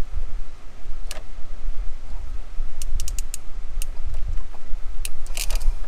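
A few sharp little clicks and light metallic rattles from hands and tools working on a truck's blower switch wiring: one about a second in, a quick cluster near the middle, more near the end. They come over a steady low rumble.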